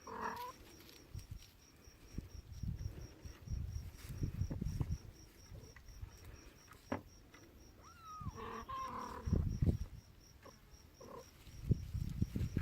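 Young kittens mewing: one short mew at the start and a rising-then-falling mew about eight seconds in. Between the mews there are soft low bumps and rustling.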